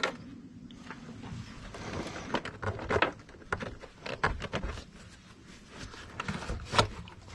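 Irregular clicks, knocks and rattles of hand work on a pickup's air intake: a 10 mm hose clamp being loosened and the stock plastic intake tube being worked loose and pulled off.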